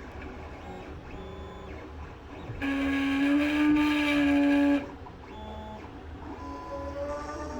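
Creality CR-10 S5 3D printer running, its motors whining in short moves at changing pitches. About two and a half seconds in, a much louder grinding with a steady hum sets in and cuts off sharply about two seconds later: the grinding noise that is the printer's fault.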